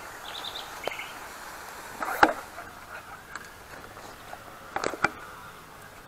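Handling of a handheld pump pressure sprayer: a few sharp clicks and knocks, the loudest about two seconds in and two more near the end. A brief run of four quick high bird chirps comes in the first second.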